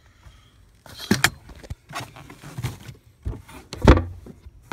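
Carpeted boat storage compartment lid being handled and shut: a series of knocks, rubs and scrapes, with the loudest thump about four seconds in as the lid closes.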